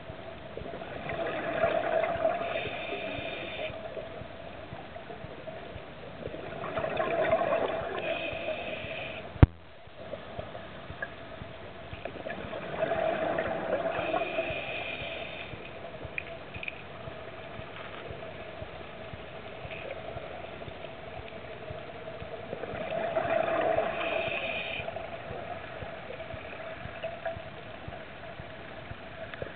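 Scuba diver's exhaled breath bubbling out of the regulator in four bursts, several seconds apart, over a steady underwater hum. One sharp click a little before the middle.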